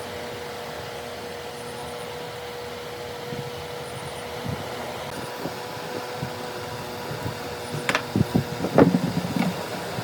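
Steady machine hum with one constant tone, then a quick run of knocks about eight seconds in.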